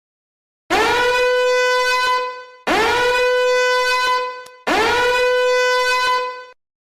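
A horn sound effect blown three times in a row, each blast about two seconds long, scooping up in pitch at the start and then holding one steady, brassy note.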